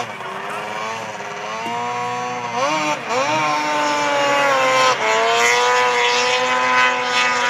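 Racing snowmobile engines running hard at high revs. Their pitch dips and climbs sharply about three seconds in and again at five seconds, and they get louder through the first half.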